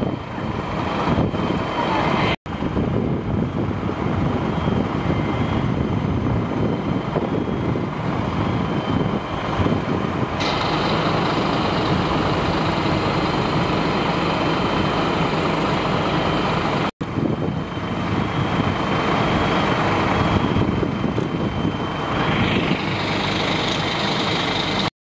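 Engines running steadily, with a faint high whine held throughout; the sound drops out briefly twice.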